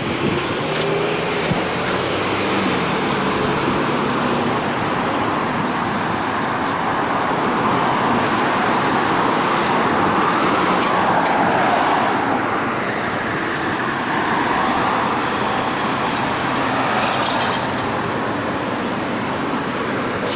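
Street traffic: a steady rush of passing cars' engines and tyres, swelling as a vehicle goes by a little past the middle, then easing.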